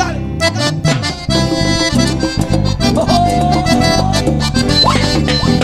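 A live cumbia band plays an instrumental stretch with no singing: a lead melody over steady bass and drums.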